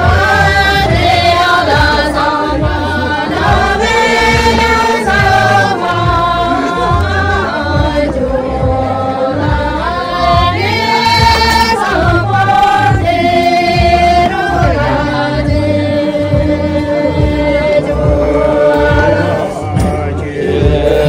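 A group of men and women singing a song together, with a steady low beat underneath.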